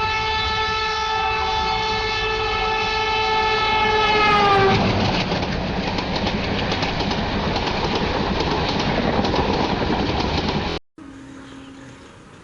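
WAP4 electric locomotive's horn sounding one long low-toned blast that bends down in pitch about four and a half seconds in as the locomotive passes, followed by the loud rumble and clatter of the train's wheels rolling by. The sound cuts off abruptly near the end, giving way to much quieter ambience.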